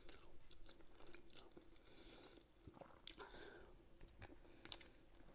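Faint chewing of food, with scattered soft mouth clicks over a low steady hum.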